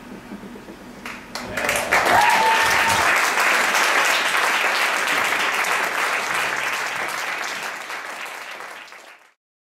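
Audience applauding at the end of a live ensemble piece, starting about a second and a half in, loudest at first and then tapering off, with a brief cheer near the start. The applause cuts off suddenly near the end.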